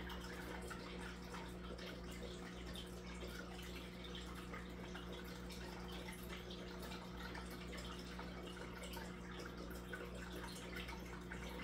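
Aquarium water trickling and bubbling at the surface, many small drips and splashes over the steady low hum of the tank's pump.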